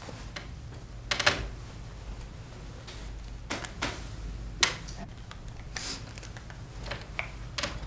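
Light, scattered clicks and taps, about half a dozen at irregular intervals, over a low steady hum.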